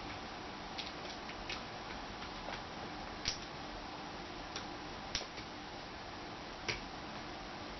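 Scattered light clicks and taps of a small screwdriver and plastic laptop parts being handled during reassembly, about six irregular clicks, the loudest a little over three seconds in, over a steady faint hiss.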